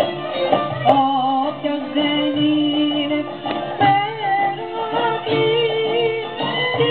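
Traditional Asia Minor Greek folk dance music: a melody of long held, ornamented notes, with singing, over plucked strings.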